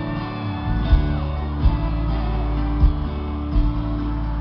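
Live sertanejo band playing an instrumental passage without vocals: strummed guitars over bass, with a heavy beat about once a second.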